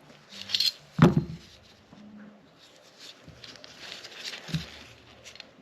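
Handling noises from cleaning a pistol barrel: a sharp knock about a second in, then soft rubbing and scraping with another light knock near the end.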